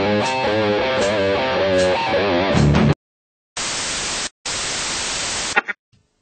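A short music jingle with plucked, guitar-like notes, about three seconds long, that stops abruptly. After a brief pause comes a hiss of TV static in two stretches with a short break between them, cutting off suddenly with a few small crackles.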